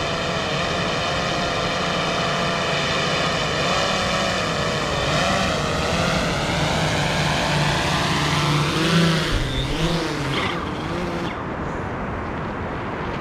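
Multi-rotor drone's motors whining, the pitch wavering up and down as it manoeuvres, then the motors cutting off abruptly about eleven seconds in.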